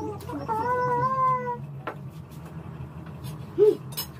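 A cat meowing: one long meow starting about half a second in, then a short, louder call near the end. Light clinks of dishes and cutlery sound in between.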